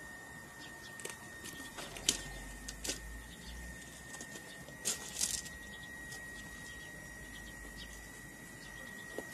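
Faint outdoor ambience with a steady, thin high-pitched tone. A few sharp rustles and clicks, loudest about two seconds in and again about five seconds in, come with a low rumble, typical of a handheld camera being moved around.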